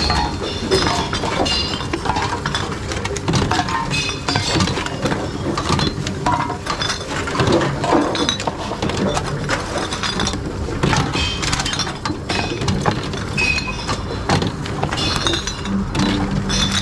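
Glass bottles and cans clinking and clattering as they are fed one after another into reverse vending machines and carried off inside.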